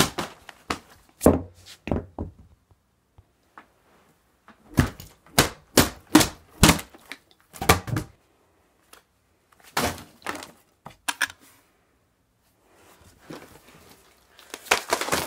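A series of sharp knocks and thuds from hands striking objects, coming in a few bursts of several hits each with quiet gaps between. Near the end comes a busier stretch of handling noise and knocks.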